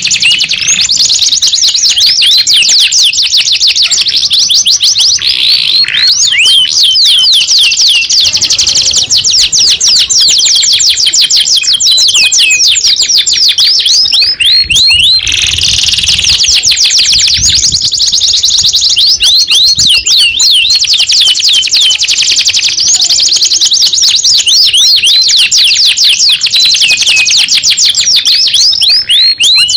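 Domestic canary singing a long, continuous song of rapid rolling trills: fast runs of repeated sweeping chirps, with only a brief break in the pattern about halfway through.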